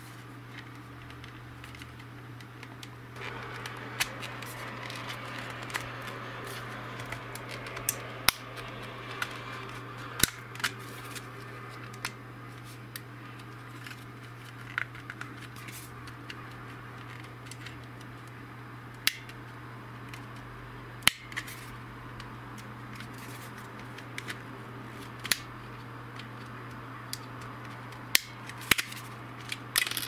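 Plastic case of a Panasonic VEQ-0935 VCR remote being pried apart with a thin plastic card: the card scrapes along the seam and the snap latches click loose one after another, as sharp irregular clicks.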